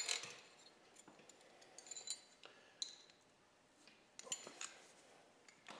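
Faint metallic clinks and ticks of a wrench working a pair of locked nuts, threading a manifold stud into a Ford Model T cast-iron engine block. A few separate clinks come near the start, around two to three seconds in, and again a little after four seconds.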